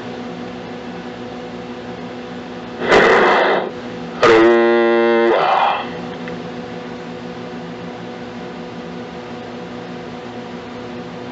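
CB radio receiver hiss on the 11-metre band with faint steady heterodyne whines. About three seconds in comes a short burst of noise, and about four seconds in a pitched tone lasting about a second, as a station keys up without speaking.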